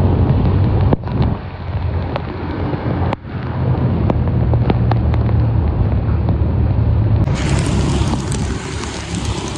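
Wind buffeting the microphone of a moving vehicle, over a steady low engine hum, with scattered small ticks. The sound breaks off abruptly about a second in and again about three seconds in, and turns brighter and hissier near the end.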